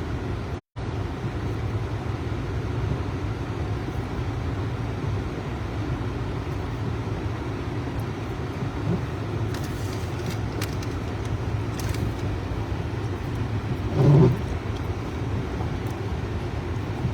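Steady road and engine noise heard inside a moving car's cabin. The sound cuts out for a moment just under a second in, and there is one brief louder sound about fourteen seconds in.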